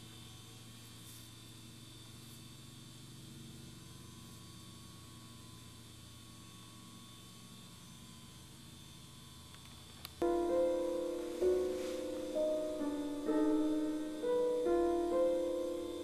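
A faint low steady hum for about ten seconds, then piano music comes in abruptly, a slow phrase of repeated ringing notes.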